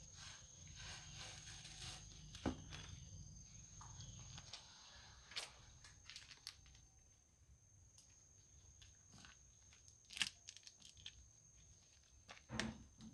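Faint rustling of straw with a few sharp snaps and clicks, the loudest about two and a half seconds in, ten seconds in and near the end, from straw mushrooms being picked and handled. A faint steady high whine runs underneath.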